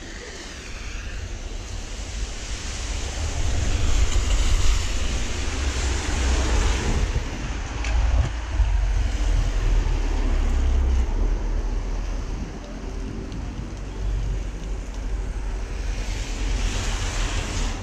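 Wind buffeting the microphone, a heavy, uneven low rumble, over a steady wet-weather hiss of rain that swells about three seconds in and again near the end.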